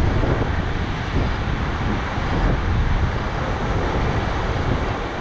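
Rushing whitewater of a river rapid, a loud steady roar with heavy wind buffeting on the microphone.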